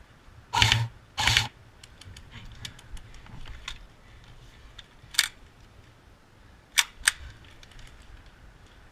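Airsoft electric rifle firing two short bursts in quick succession, each about a third of a second, then three sharp single cracks later, two of them close together, over faint scattered ticks of airsoft fire.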